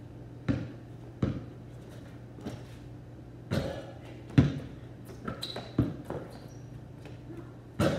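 Basketball bounced on a concrete driveway: two quick dribbles, then a pause and scattered single bounces, the loudest about four and a half seconds in.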